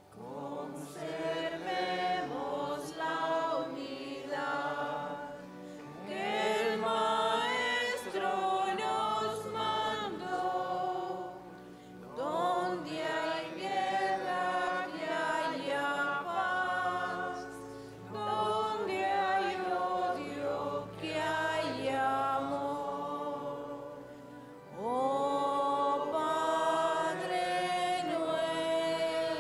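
Church choir singing a hymn in phrases of about five seconds, each one swelling up after a short breath.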